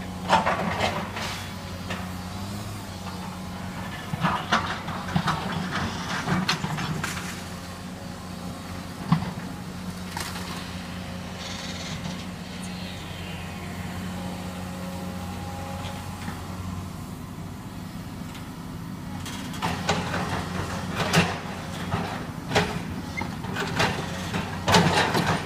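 Excavator demolishing a house: a steady engine drone under bursts of crunching and clattering debris, mostly in the first several seconds and again in the last five.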